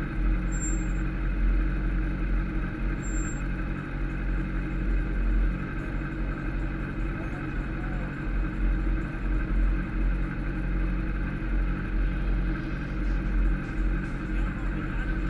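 Kawasaki ZX-10R (second generation) sportbike's inline-four engine running steadily at idle, with a deep low hum under it. Two brief, faint high beeps come in the first few seconds.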